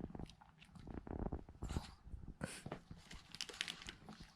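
Small dog nibbling and pawing at a wrapped treat that it cannot get open: faint, irregular clicks and scuffs.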